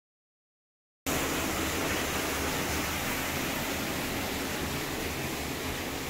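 A steady, even rushing hiss that starts abruptly about a second in, after total silence, and holds level from then on.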